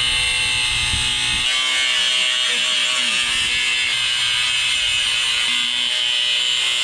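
Ridgid cordless angle grinder with a cut-off wheel slicing through a sheet-steel computer case panel: a steady, high-pitched whine with the hiss of the wheel biting the metal.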